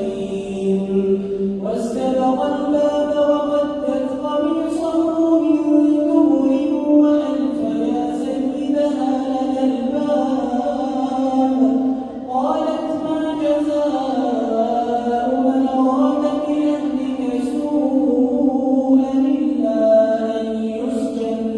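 A man's voice chanting Quranic recitation (tajwid) in long, drawn-out melodic notes that slide slowly up and down in pitch, with brief pauses about 2 seconds and 12 seconds in.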